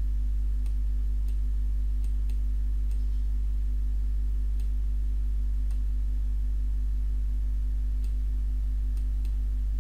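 A steady low electrical hum, with about ten faint, irregularly spaced computer-mouse clicks.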